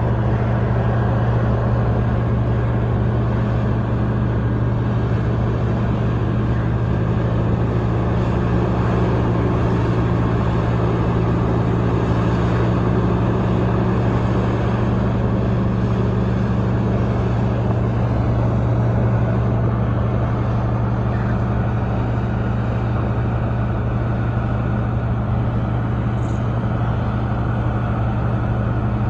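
Large diesel engine of a Caterpillar 6015 mining excavator running steadily under load with a deep, even drone while it loads coal.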